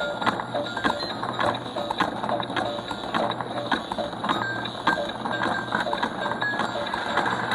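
Battery-powered duck Ferris wheel track toy running: a steady motor hum under a regular clicking as the plastic ducks clack through the mechanism, with short beeping electronic tones of the toy's tune over it.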